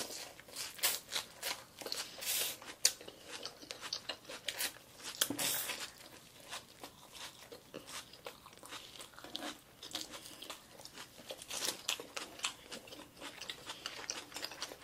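Close-up chewing and biting of sushi: irregular crisp crunching as the nori seaweed of a tobiko cone hand roll is bitten and chewed.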